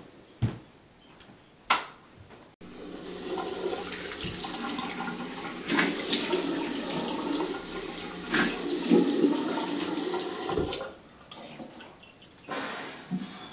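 Two short knocks, then a bathroom tap running into a sink for about eight seconds, with splashing as hands are washed under it; the water stops near the end.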